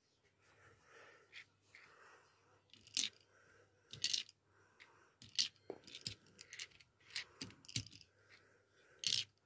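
Irregular sharp clicks and clacks of a die-cast toy trailer dump truck and its small plastic parts being handled on a tabletop, about ten knocks in all, the loudest near the start, in the middle and near the end.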